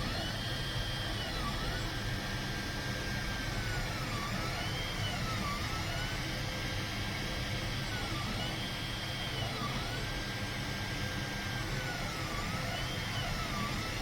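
Bambu Lab X1 Carbon 3D printer laying down the skirt around the first layer. Its stepper motors whine in a high tone that dips and swoops back up every second or two as the print head changes speed and direction, over a steady whir.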